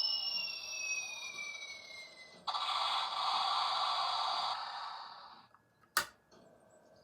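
Played novelty sound effects: two tones gliding apart, one rising and one falling, then an abrupt hiss lasting about three seconds, and a single sharp click near the end.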